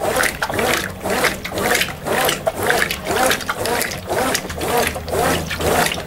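Brastemp Ative! BWP11 top-loading washing machine agitating a load in soapy water during its wash stage. The water sloshes and swishes in a steady rhythm of about two strokes a second, and with each stroke a motor whir rises and falls in pitch as the agitator reverses.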